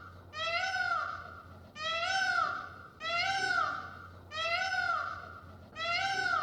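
A kitten meowing: five high meows, each rising then falling, evenly spaced about a second and a half apart.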